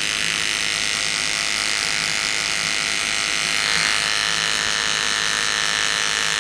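Electric animal hair clippers running with a steady buzz while shaving fur from a sugar glider's gliding membrane around a wound, in preparation for stitching.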